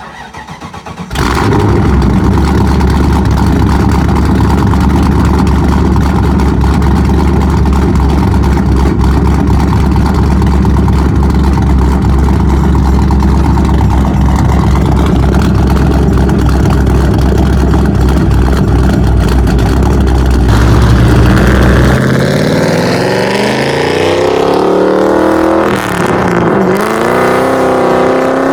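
Ford Mustang V8 with a welded exhaust starting up about a second in and idling loudly and steadily. Near the end it revs and pulls away, its pitch rising and falling.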